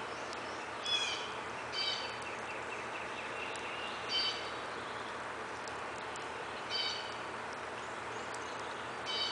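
A small bird chirping, five short high calls spaced one to two and a half seconds apart, over a steady faint hiss.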